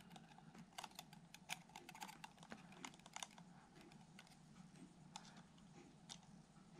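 Faint, irregular small clicks and ticks of a plastic pick prodding the autofocus module inside an opened Sony Zeiss 24-70mm f/4 lens, whose focusing coil has come loose. The clicks are mostly in the first half.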